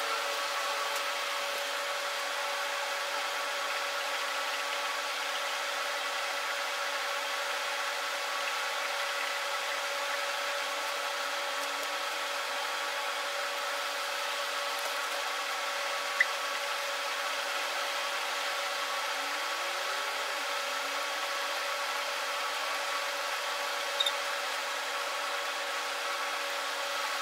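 Steady background hum and hiss with a few held tones, broken by two brief clicks, one past the middle and one near the end.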